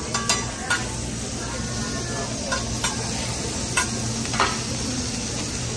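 Metal spatula scraping and tapping on a flat-top teppanyaki griddle as it works diced meat, giving several sharp clicks over a steady sizzle of the meat frying.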